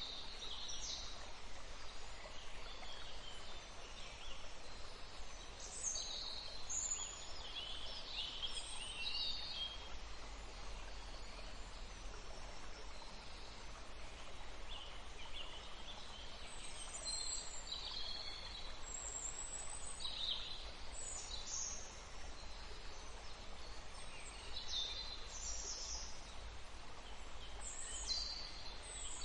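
Songbirds singing short, high chirps and trills, scattered through the whole stretch, over a steady background hiss.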